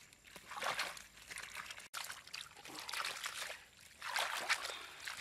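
Water sloshing and trickling as a woven bamboo basket is dipped into shallow muddy water and lifted, the water draining through the weave, in three surges.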